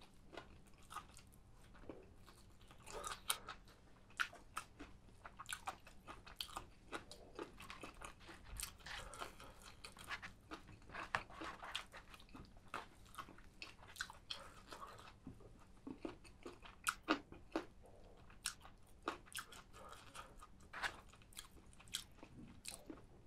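A person chewing and biting spicy chicken, with irregular crunches a few times a second.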